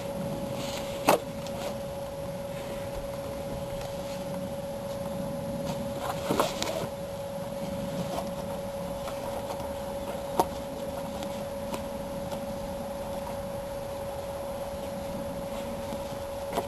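A few sharp knocks and clunks from a car's rear seat being handled and fitted into the cabin, one about a second in, a cluster around six seconds and another near ten seconds, over a steady mid-pitched tone.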